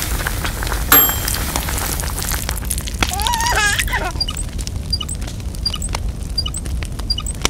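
Cartoon campfire crackling over a steady low rumble. About a second in comes a sharp pop with a brief ringing tone. Around three seconds a short voice cry wavers up and down in pitch, followed by faint regular ticks about every two-thirds of a second.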